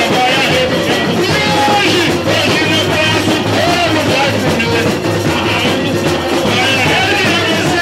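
Live samba-enredo: a lead singer on a microphone, accompanied by a cavaquinho and other voices singing along, playing steadily without a break.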